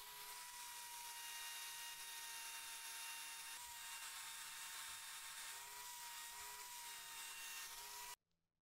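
Electric drill running at a steady speed, spinning a metal ring on a mandrel as it is sanded and polished: a steady whine over a hiss. It cuts off suddenly near the end.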